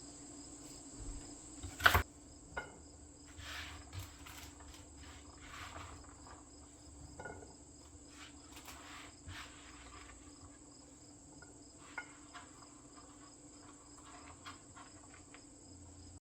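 Crickets trilling steadily in the background, with a sharp knock about two seconds in and scattered light clicks and knocks.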